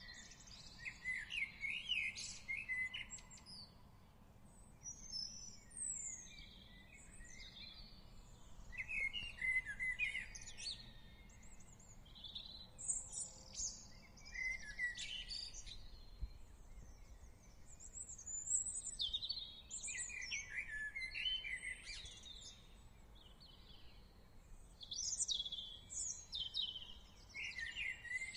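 Songbirds singing in the open air: short, quick chirping and warbling phrases from several birds, coming in bursts every few seconds, over a faint low background rumble.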